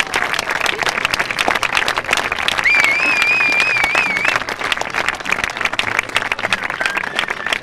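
Audience applause at a curtain call: dense, steady clapping from a large crowd. A high wavering tone rides over it for about a second and a half, starting near the three-second mark. The clapping eases off somewhat in the second half.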